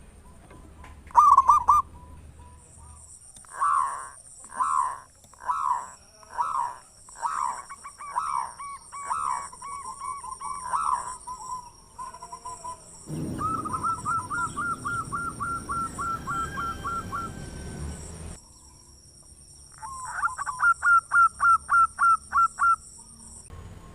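Zebra doves (perkutut) singing: a run of separate falling coos, then fast strings of short repeated notes, the last string loud and quick.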